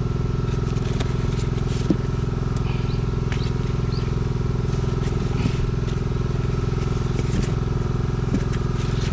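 A vehicle engine running at a steady, unchanging pitch, as when cruising at an even speed, with a few faint clicks and rattles over it.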